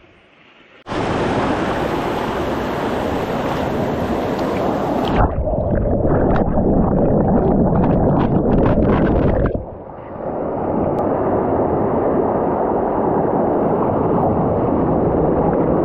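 Rushing water of a mountain gorge stream, a loud steady noise that starts abruptly about a second in. It changes character twice, with irregular sharper splashy sounds in the middle stretch.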